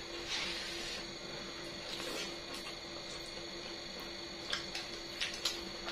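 A person chewing food close to the microphone, with soft wet mouth sounds early on and several short, sharp smacking clicks in the second half.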